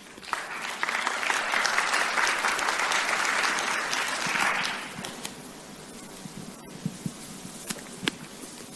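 Audience applauding for about five seconds, then dying away, followed by a few faint clicks.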